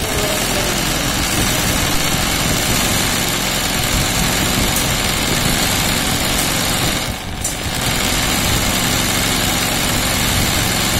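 Electric sewing machine running at a steady fast speed while its needle stitches free-motion embroidery through fabric in a hoop, with a short dip about seven seconds in.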